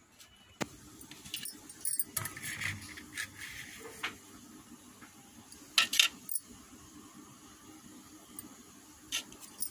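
Metal utensil scraping and clinking on a steel plate as steamed biscuits are prised off it, with a few sharp clinks, the loudest about six seconds in.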